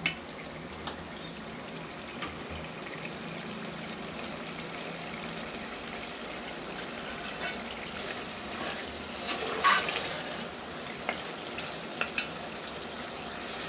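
Spinach and beef frying in a metal pot with a steady sizzle, being bhuna before stock goes in, while a metal spoon stirs and scrapes against the pot in scattered clicks, the loudest about ten seconds in.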